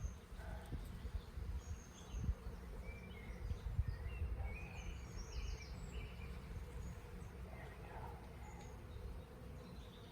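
Honeybees buzzing steadily around an opened hive, with short bird chirps here and there.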